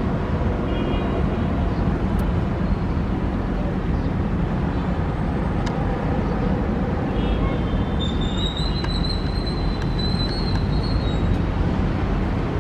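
Jet airliner engines giving a steady, loud rumble, with a faint high whine entering about two-thirds of the way through.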